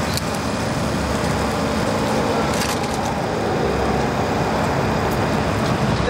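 Steady rumble of vehicle engines and roadway traffic.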